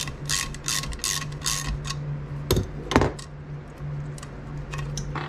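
A metal cover plate being worked loose by hand from a two-stroke jetski engine's cooling jacket: a quick run of rattling scrapes, about three a second, then two sharp metallic clanks with a short ring around the middle, and a few light clicks near the end.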